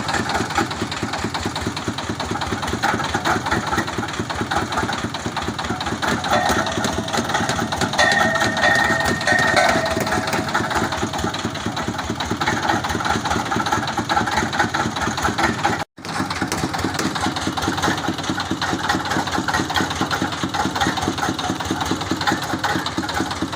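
Engine of a water-well boring rig running steadily with a fast, even beat, and a high tone sounding over it for a couple of seconds about a third of the way through.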